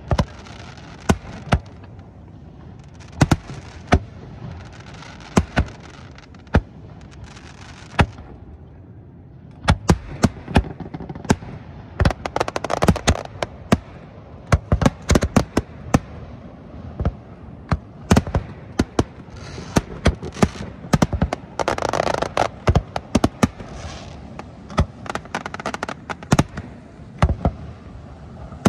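Aerial firework shells bursting in a professional display: separate sharp bangs a second or two apart at first, then from about ten seconds in a rapid barrage of many overlapping bangs.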